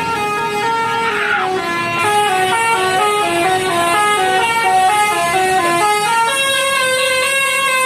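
Bus 'telolet' musical air horn (Basuri V3) playing a quick melody of short stepped notes, which turn into longer held chords about six seconds in.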